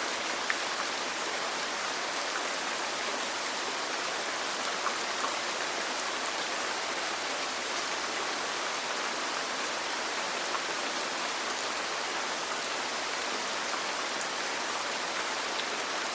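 Steady rain falling on a roof: an even, dense hiss with a few small ticks of single drops.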